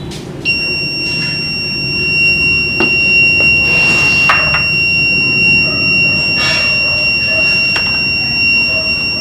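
A homemade water alarm's 3V buzzer sounds one steady, high-pitched tone that comes on about half a second in: water has bridged the coat-hanger wire contacts and closed the circuit. A few brief rustling noises sit behind the tone.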